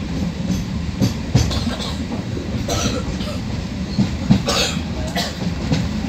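MEMU electric train running along the line: a steady rumble of wheels on rail with irregular knocks over the rail joints. Two short hissing bursts come about three and four and a half seconds in.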